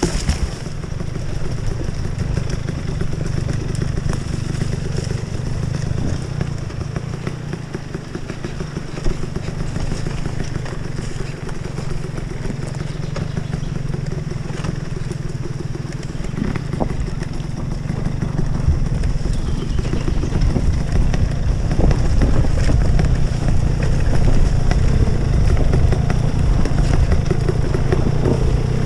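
Enduro motorcycle engine running steadily at low revs, getting louder about two-thirds of the way in.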